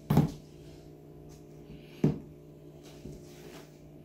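Cardboard graphics-card box knocking down onto a stone countertop twice, about two seconds apart, as it is handled and set down.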